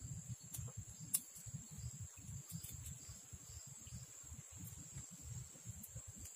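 Insects, crickets or cicadas, keeping up a steady, high, even drone, over a low uneven rumble, with a sharp click about a second in.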